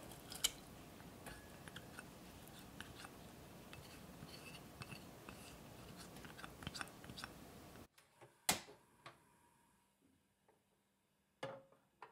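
A spoon scraping and tapping as wet, steeped tea leaves are scraped into cream in an enamel saucepan: soft scrapes and many small clicks. In the quieter later part come two sharp knocks, one a little past the middle and one near the end.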